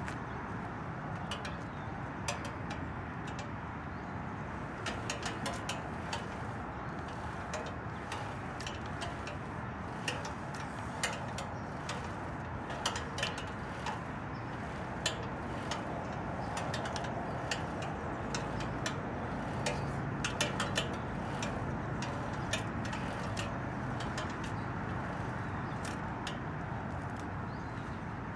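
Steady outdoor background noise with many short, sharp clicks and ticks coming irregularly, thickest in the middle stretch.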